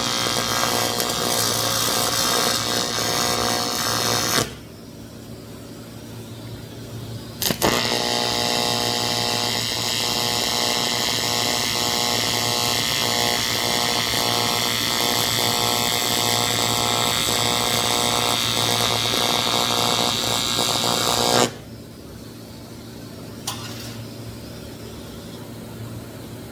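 AC TIG welding arc on aluminum buzzing steadily in two runs. The first cuts off about four seconds in; the second strikes with a sharp crack about seven seconds in and stops about five seconds before the end. The welder's low hum carries on between the runs.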